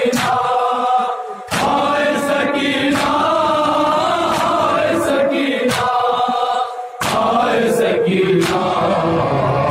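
Men chanting a noha (Shia lament) together in chorus, with a regular beat of sharp hand slaps of matam, chest-beating, keeping time under the voices.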